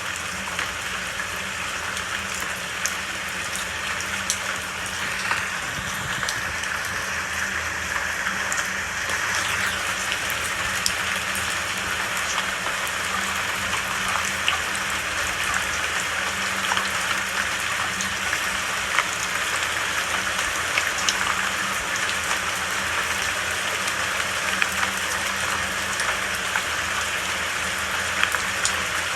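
Steady rain falling, a dense hiss with many individual drops pattering and ticking close by.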